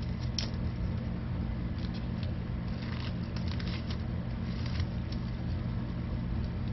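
Soft, scattered rustling and crinkling of a small paper tea bag of whole spices being pinched and folded by hand, over a steady low hum.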